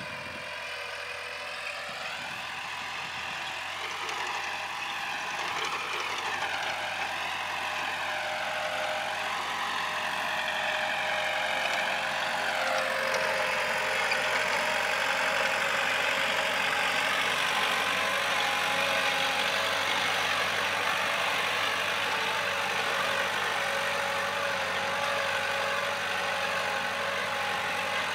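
Kubota L4708 47-horsepower diesel tractor engine running under load while pulling a disc plough through the soil. Its pitch wavers up and down for the first dozen seconds, then settles to a steady note as it grows louder and closer.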